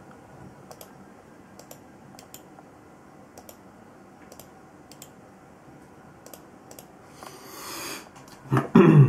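Computer mouse clicking: a dozen or so short, sharp clicks, some in quick pairs, as text is pasted into web form fields, with a short hiss near the end.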